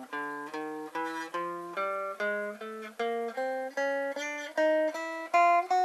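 Stratocaster-style electric guitar playing single notes with alternate down-up picking, about three notes a second, each note struck separately and climbing in small steps: an ascending chromatic-scale picking exercise.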